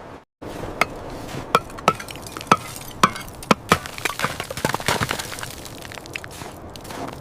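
Ice being chipped and cracking: a string of sharp, irregular cracks and chinks, with the loudest blows in the first four seconds and quicker, lighter cracks after that, over a steady hiss.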